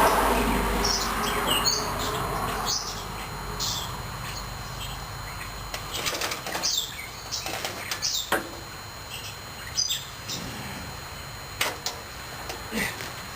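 Small birds chirping on and off, over a low rumble that fades away in the first few seconds, with a few sharp knocks in the second half.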